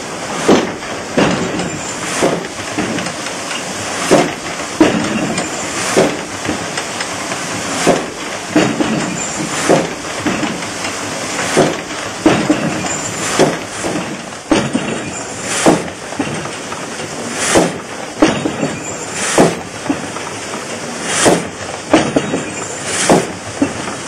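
Old water-powered sawmill with a reciprocating frame saw, running. Its mechanism knocks in a steady rhythm, a loud knock about every two seconds with lighter clacks between, over a continuous rushing noise.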